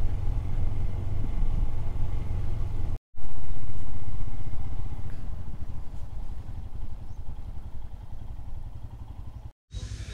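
Royal Enfield Himalayan's single-cylinder engine and the rush of riding, heard from a camera on the moving motorcycle as a steady low rumble. It cuts out briefly twice. After the first break, about three seconds in, it comes back louder, then fades gradually.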